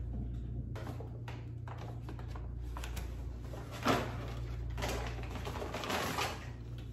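Water in a small tank being smacked, one sharp slap about four seconds in among scattered small clicks and splashes, over a steady low hum.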